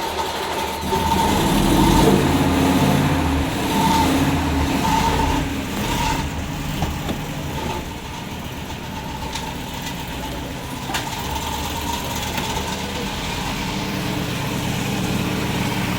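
A 2006 Ford E350's 5.4-litre V8 running with a bad noise. It is loud and uneven for the first few seconds, then settles into a steadier idle. The owner wonders whether the engine is flooded.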